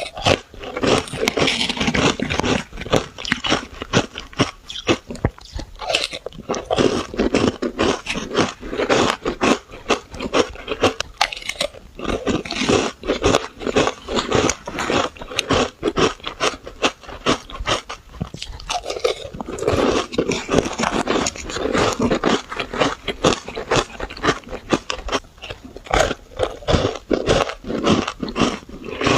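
Close-miked biting and chewing of powdery shaved ice: dense, rapid crackling crunches that go on without a break.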